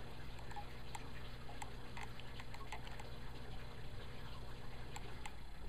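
A steady low hum with scattered faint clicks and ticks, irregularly spaced.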